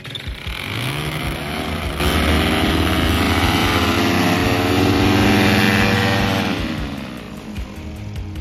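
Tandem paramotor's backpack engine and caged propeller running up to full power for a takeoff run. Its pitch climbs about a second in, holds loud and steady, then pitch and level fall away near the end.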